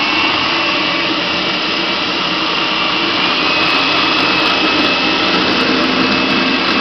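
Electric food processor running steadily at full speed, its blade churning dog food and water into a smooth slurry, with a thin whine over the motor's whirr.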